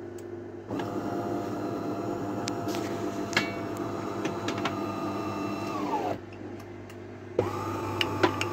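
DeLonghi Magnifica Evo ECAM 290.61 espresso machine running its start-up self-test: an internal motor whines steadily with a few clicks. The motor winds down with a falling whine about six seconds in, then starts again over a second later.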